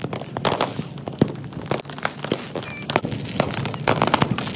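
Fireworks and firecrackers going off in quick succession, a dense run of sharp bangs and pops, with a couple of short high whistles about three seconds in.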